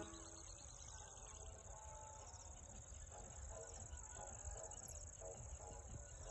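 Faint, steady chirring of insects, with a fast pulsing texture. Soft, regularly repeated short notes join lower down from about halfway through.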